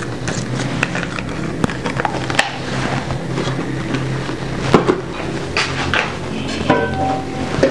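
Kitchen handling noise: scattered knocks and clicks of plastic bowls and lids being handled and set down, over a steady low hum, with a brief ringing clatter near the end.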